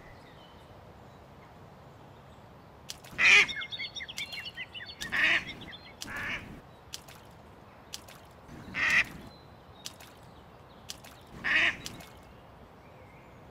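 A duck quacking: about five short, separate quacks spread over several seconds.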